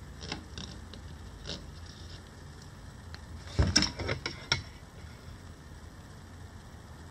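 A few light clicks, then a quick run of five or six sharp knocks and clatter about three and a half seconds in: knife and handle parts being worked and a tool handled on a hard workbench floor.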